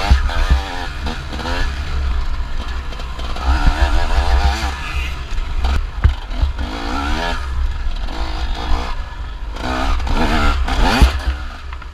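Two-stroke engine of a TM 250 EN enduro motorcycle revving hard and falling back again and again as the rider accelerates and shifts, heard from on board with heavy wind rumble on the microphone. There are occasional sharp knocks as the bike crosses rough ground.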